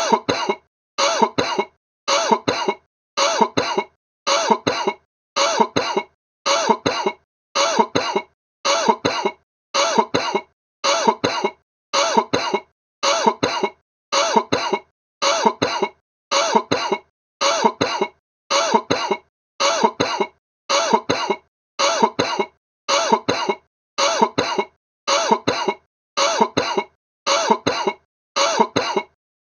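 A person's sick cough: a short burst of two or three coughs, repeated over and over at an even pace of about one burst a second.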